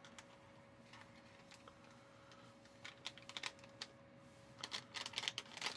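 Paper-and-foil cookie-mix packet crinkling and tapping as its powder is shaken out into a plastic mixing tray: a few faint crisp clicks about three seconds in, then a quick run of crackles near the end.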